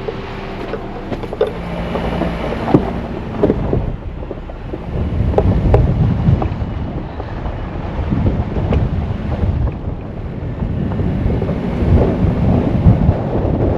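Wind buffeting the microphone in a heavy low rumble, with scattered short knocks. A faint steady hum sits under it in the first few seconds.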